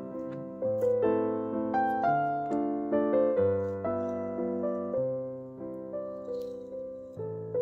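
Background piano music: a gentle melody of single notes and chords, each note struck and left to fade.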